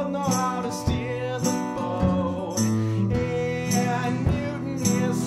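Live band music: a man singing long held notes over strummed acoustic guitar, with regular percussive hits keeping the beat.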